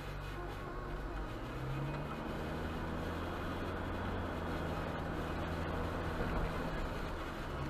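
Car engine accelerating, heard from inside the cabin, with its pitch rising about two seconds in, over a steady hiss of tyres on a wet road.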